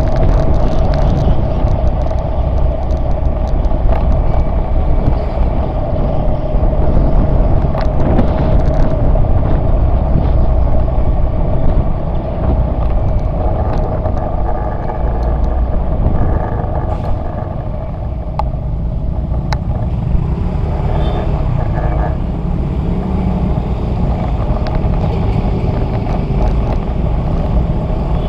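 Motorcycle riding along a street: its engine running steadily under heavy wind rumble on the bike-mounted camera's microphone, with a few sharp clicks. It gets a little quieter about twelve seconds in as the ride slows.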